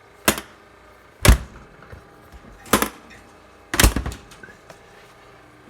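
Door handle latches of a 1932 Westinghouse refrigerator being worked, four sharp clunks spaced about a second or so apart.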